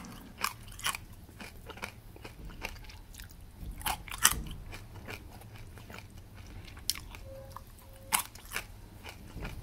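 Crispy fried anchovies being chewed, in irregular sharp crunches.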